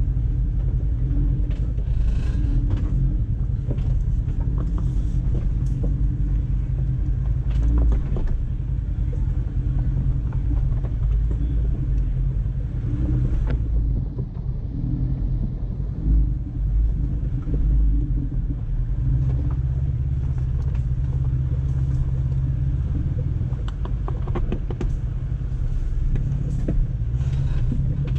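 Jeep engine running steadily with a low rumble, with scattered short clicks and knocks over it.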